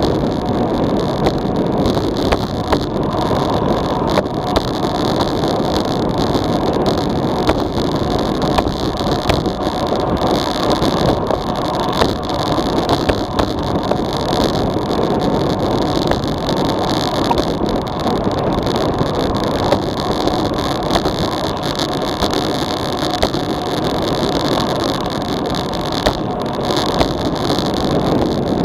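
Steady rush of wind over a bike-mounted action camera's microphone on a fast road-bike descent at about 40 km/h, mixed with tyre and road noise and scattered small clicks.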